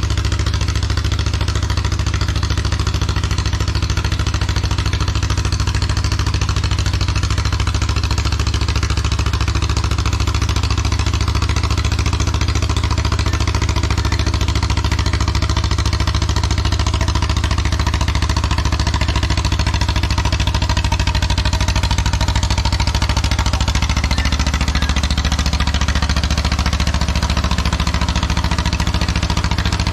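1954 John Deere 40C crawler dozer's two-cylinder engine running steadily while it works gravel, its note shifting slightly about two-thirds of the way through.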